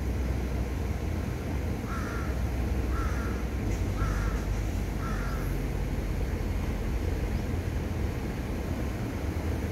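Steady low rumble of city traffic, with a bird calling four times, about a second apart, a couple of seconds in.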